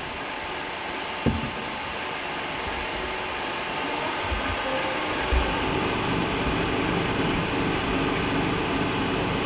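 Tahini-making machinery running: a steady mechanical whir and hiss that grows a little louder, with a soft knock about a second in and another past the middle.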